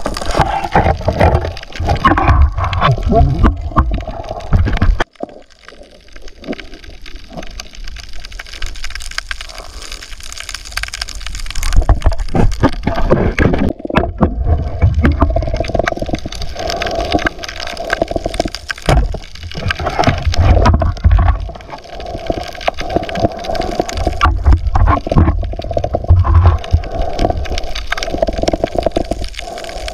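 Shallow seawater sloshing and gurgling around the camera as it moves through seagrass, with uneven low rumbling surges and scattered knocks; it drops off briefly about five seconds in and again near the middle.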